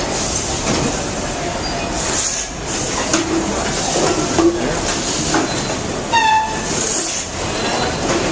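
Steady din of production-line machinery in a cookware factory, with scattered clanks and clicks. A short pitched squeal sounds about six seconds in.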